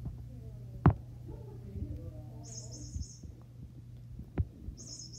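A cat digging and shifting about in a plastic litter box, with two sharp knocks, about a second in and near the end, over a steady low hum. Short, high-pitched chirping trills come twice.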